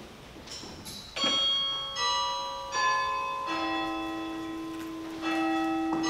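Bell chimes: about a second in, five slow struck notes at different pitches, each ringing on and overlapping the next as it slowly fades.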